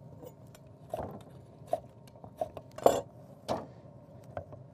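Chef's knife cutting through raw sweet potato into thick slices and knocking on a wooden cutting board: about half a dozen irregularly spaced knocks, the loudest about three seconds in.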